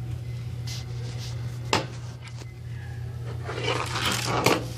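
Steady low hum with a sharp click about a second and a half in and a lighter click just after, then about a second of rubbing and scraping near the end that ends in another sharp click.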